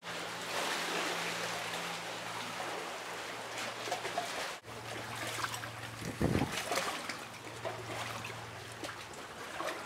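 Seawater lapping and trickling among shoreline rocks, with a faint low steady hum underneath and a short low thud about six seconds in.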